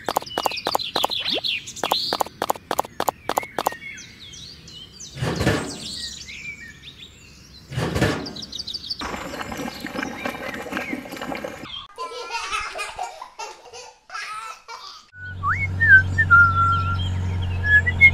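A rapid string of sharp taps as tiny bricks are set in mortar, two short rushing sounds, then wet cement pouring and spreading. Near the end a small motor hums steadily, with birds chirping over light music.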